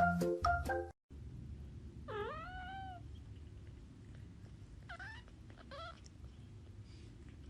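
Cat meowing: one drawn-out meow about two seconds in, then two short meows around five and six seconds, over a low steady room hum.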